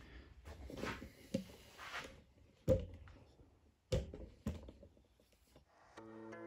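Quiet workshop room tone with some handling rustle and a few sharp knocks, the loudest about two and a half seconds in. Background guitar music begins near the end.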